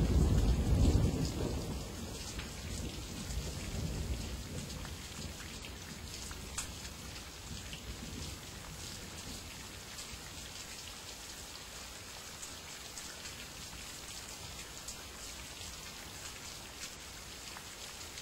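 Thunder rumbling at the start and dying away over the first few seconds, then steady rain falling with scattered drops ticking.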